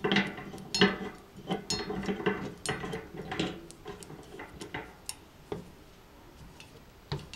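Metal cart pole being screwed by hand into the base: a run of irregular metallic clicks and light rattles of the threads and pole against the metal basket, thinning out after about four seconds.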